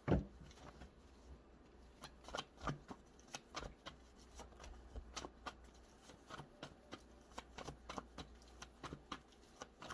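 Tarot cards being handled and shuffled: a run of short, irregular clicks and flicks, several a second, with a sharper knock at the start.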